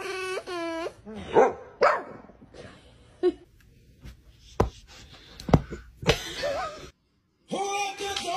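Dogs vocalizing: two drawn-out wavering whining calls at the start, then a few short barks and some sharp knocks. After a brief drop-out near the end, music with singing comes in.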